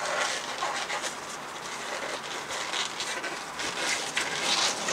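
Soft rustling and faint snaps of blue disposable surgical gloves being pulled onto the hands and smoothed down, a few small crisp sounds in the second half over a steady outdoor hiss.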